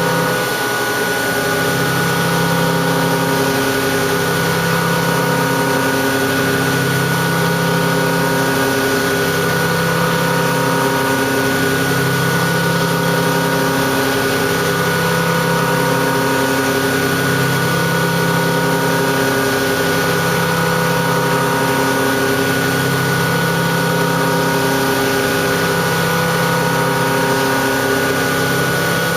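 Haas 5-axis vertical machining center running steadily while cutting a valve seat in a cylinder head, a spindle whine of several steady tones with a low hum that swells and dips about every two seconds.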